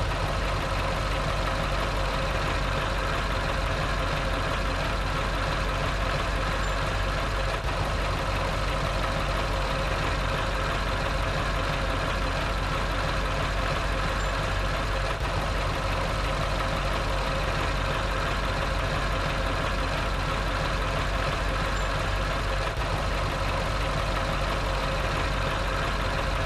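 A large engine idling steadily, with an even hum that does not change.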